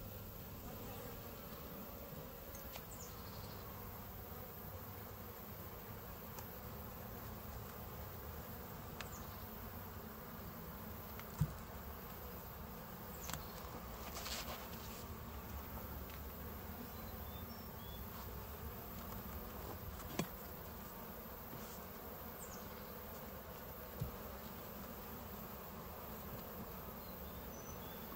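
Honeybees buzzing steadily around an open hive, with a few scattered sharp knocks of wooden frames and a metal hive tool.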